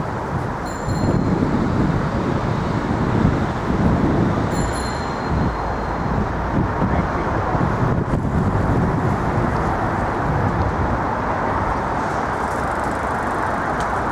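Steady city street traffic, cars and other vehicles passing in a continuous rumble, with two brief high-pitched tones about one and five seconds in.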